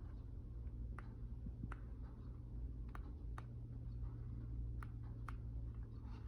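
Six or so faint, sharp clicks at irregular intervals over a low steady hum.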